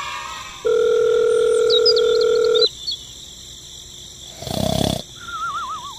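Edited-in cartoon sound effects. A steady electronic beep is held for about two seconds, with a few faint high chirps over its end. About four and a half seconds in comes a short noisy burst, then a wobbling, falling whistle.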